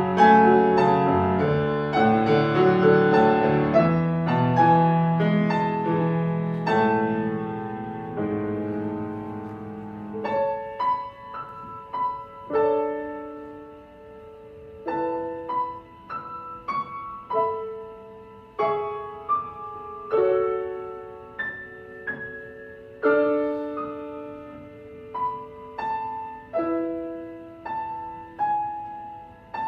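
Solo piano playing: full chords over a bass line for the first ten seconds or so, then sparse single notes and light chords higher up with no bass, each struck note ringing and fading away.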